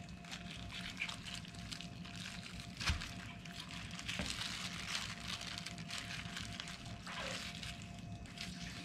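Knife cutting and scraping braised pig's trotter meat off the bone on a plastic cutting board, with soft wet squishing and light clicks, and one sharp knock about three seconds in, over a faint steady hum.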